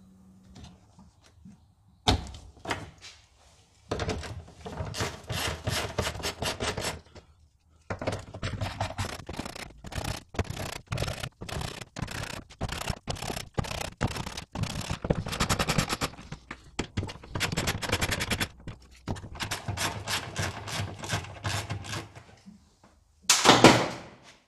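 Rapid clicks, knocks and rattles of metal and plastic parts being worked by hand while stripping a car's rear wiring and trim, in runs broken by short pauses, with a louder knock near the end.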